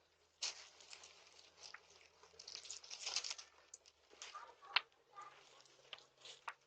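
Faint, irregular rustling and crinkling of candy wrappers being handled, with scattered light clicks.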